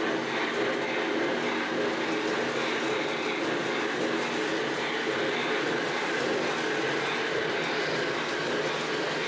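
Lionel O-gauge model trains running: two Lionel Legacy EM-1 steam locomotives pulling a long freight train of about 75 cars, making a steady rolling rumble of many metal wheels on track.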